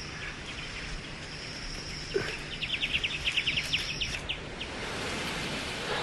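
Dry-scrub wildlife ambience: a steady high-pitched buzz for the first few seconds, a quick run of about a dozen chirping notes in the middle, over a soft rustling hiss.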